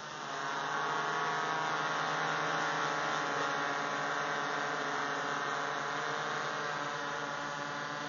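Hovering quadcopter: four A2212 1000KV brushless motors spinning 10x4.5 propellers, giving a steady, many-toned buzz that swells about half a second in and then holds level.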